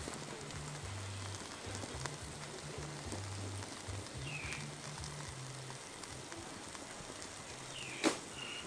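Wood fire under a cooking stone hissing and crackling faintly, with one sharp pop near the end. A bird chirps briefly about halfway through and again just after the pop.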